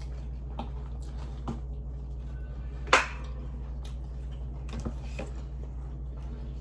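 Steady low hum under a few faint clicks and one short, sharper crackle about three seconds in: small sounds of eating chicken nuggets.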